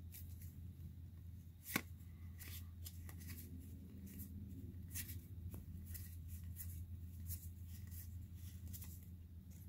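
Pokémon trading cards being flipped through by hand, each card slid from the front of the stack to the back: faint, scattered soft card clicks and rustles, with one sharper tap a little under two seconds in.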